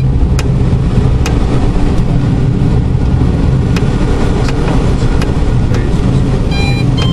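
Steady loud rush of air and low rumble inside a light aircraft's cockpit on an engine-off gliding approach, with two sharp clicks in the first second and a half.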